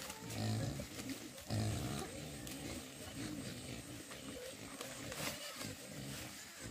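A farm animal gives short, low-pitched calls, two loud ones in the first two seconds and fainter ones after, with scattered light clicks.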